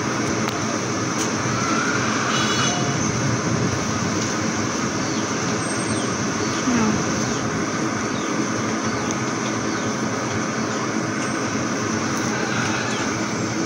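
A steady rushing noise with a few faint bird chirps.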